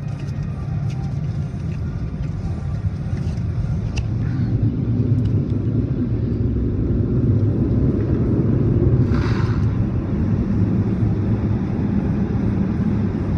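Car wash air-dryer blowers running, heard as a steady low rumble from inside the car's cabin, with a short hiss about nine seconds in.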